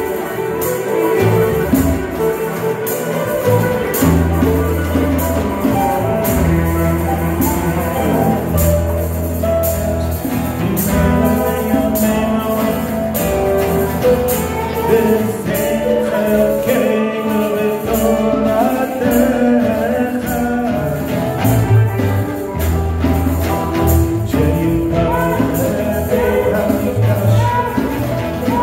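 Live acoustic music: an acoustic guitar and a mandolin strummed in a steady rhythm, with a man singing over them.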